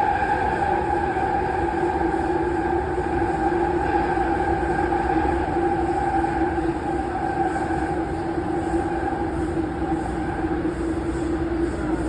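Toronto subway train running, with a steady rumble and a held electric motor whine. The higher whine fades away over the stretch and a lower tone comes in about three seconds in.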